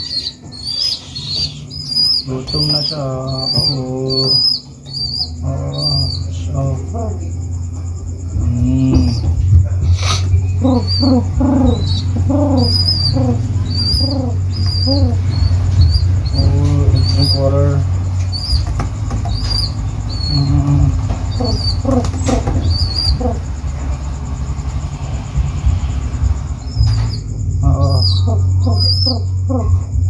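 Baby pigeon begging while being hand-fed: a run of short, high squeaky peeps about twice a second, with wing flapping. The peeps pause for a few seconds near the end, then start again.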